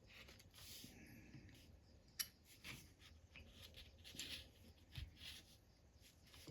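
Faint clicks and scrapes of the small metal parts of a Craftsman 3/8-inch drive ratchet being handled and picked at, with one sharper click a little over two seconds in.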